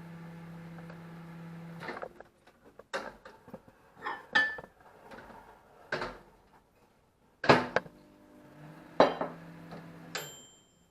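Microwave oven humming steadily, cut off with a click about two seconds in. Then a series of sharp knocks and clinks follows, from the jug and whisk being handled.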